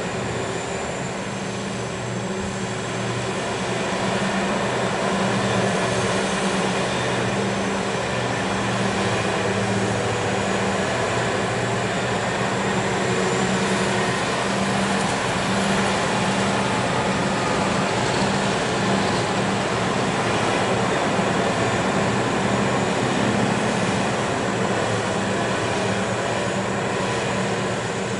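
Liebherr R 996 hydraulic mining excavator running steadily as it digs and loads a haul truck: a continuous deep machine drone that grows a little louder about four seconds in.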